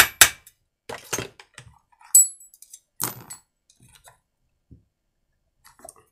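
Two sharp hammer blows on a driver held in a chainsaw screw whose heads are stripped. Then steel hand tools clink and clatter on the workbench, with a brief high metallic ring about two seconds in and another clatter at about three seconds.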